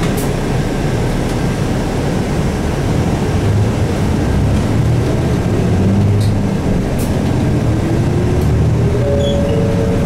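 Isuzu Erga city bus's 6HK1 turbo-diesel engine running as the bus drives along, heard from inside the front of the cabin over steady road noise. A whine rises in pitch over the last few seconds.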